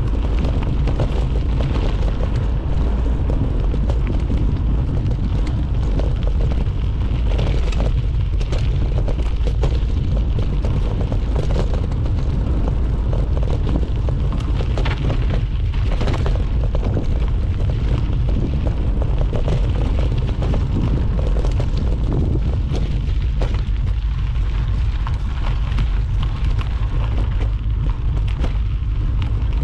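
Wind buffeting a ride camera's microphone in a constant heavy rumble, mixed with the rattle and knocks of a mountain bike running fast down a rough, rocky trail.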